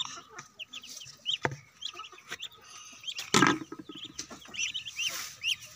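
Ducklings peeping: many short, high chirps scattered throughout, with one brief louder noise a little past halfway.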